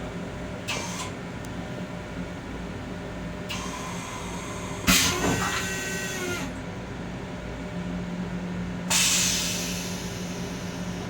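Inside a Long Island Rail Road M7 railcar's restroom: the car's steady running hum, a sharp bang about five seconds in that rings for a moment, and a sudden hiss about nine seconds in that fades away.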